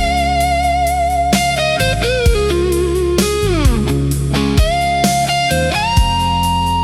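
Slow blues instrumental: a lead instrument holds long, wavering notes and bends one note slowly downward about halfway through, over a steady bass line and drums.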